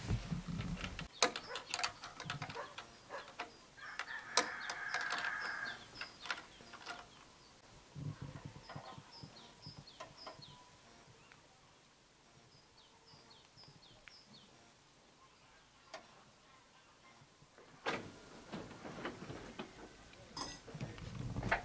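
Scattered clicks and knocks of hands fitting an amber rotating beacon to a tractor's cab roof, with a rooster crowing about four seconds in and small birds chirping.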